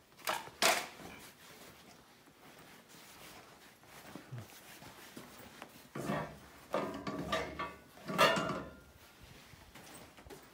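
Handling noises in an empty, echoing room: two sharp knocks within the first second, then from about six seconds in two loud runs of creaking and rattling, each lasting a second or more.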